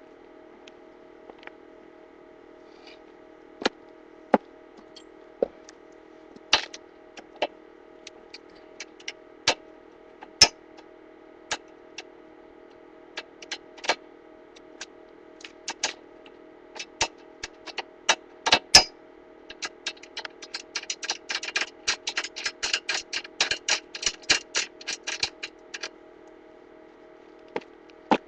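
Scattered clicks and knocks of hand tools and metal parts being handled, then a run of fast clicking for about five seconds from around twenty seconds in, over a steady low hum.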